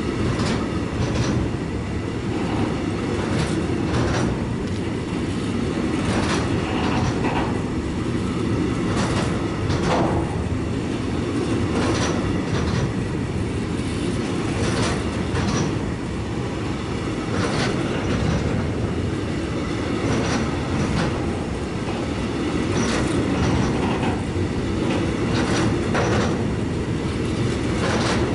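Container freight train's wagons rolling past: a steady low rumble with frequent sharp wheel clacks, roughly one or two a second.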